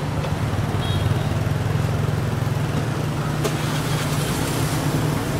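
Steady low hum of a motor vehicle engine idling close by, over the noise of street traffic.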